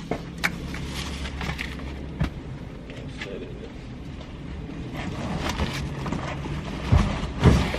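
Clatter and knocks of items being moved and loaded into a car, with two heavier thumps near the end, over a steady low hum.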